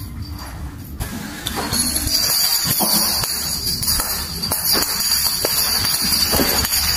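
Steady high hiss of rain with scattered light taps and clicks through it.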